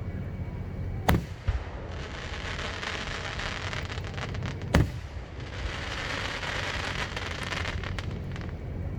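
Aerial display firework shells bursting: two sharp bangs, about a second in and just under five seconds in, followed by a spell of crackling.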